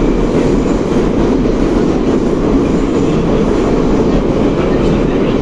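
Moscow metro 81-717/714.5A subway train running between stations, heard from inside the car: a steady, even rumble of wheels on rails and running gear.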